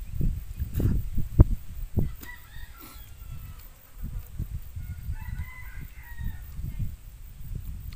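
Wind buffeting the microphone in uneven gusts. A rooster crows faintly twice, about two seconds in and again near the middle.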